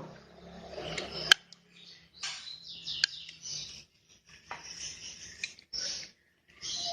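A low hum stops with a sharp click about a second in, followed by intermittent scraping, rustling and light clinking of tools and test probes being handled on the workbench.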